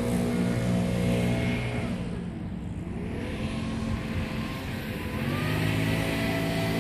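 Toro TimeCutter zero-turn mower engine running steadily. About two seconds in its pitch sinks and the sound eases off, then it glides back up and runs steady again from about five seconds in.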